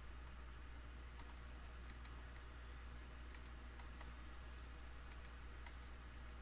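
Computer mouse clicking: three quick double clicks spaced about a second and a half apart, over a faint low hum.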